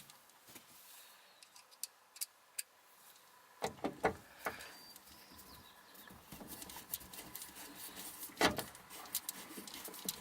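Scattered light clicks and a few louder knocks, the loudest about four seconds in and again past eight seconds, from small screws and plastic parts being handled and fitted while a tailgate handle is screwed into place.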